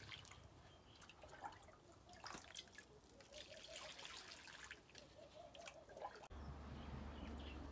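Fertiliser solution poured from a small plastic scoop, trickling faintly onto soil. About two-thirds of the way in it gives way to a faint steady low hum.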